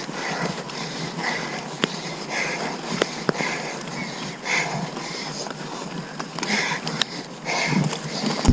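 A mountain biker's hard, rhythmic breathing under race effort, about one breath a second, with a few sharp clicks over the ride noise.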